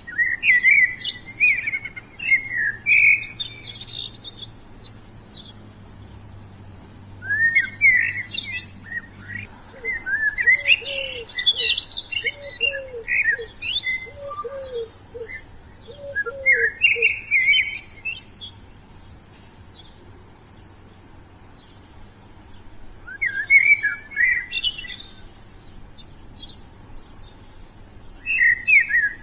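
Wild songbirds singing in bursts of quick, high chirping and warbling phrases separated by pauses of a few seconds. Midway, another bird gives a run of about six short, lower notes.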